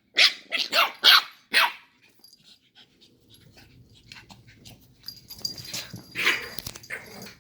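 Puppies barking in play: a quick run of about five sharp barks in the first two seconds, then quieter scuffling and another bark near the end.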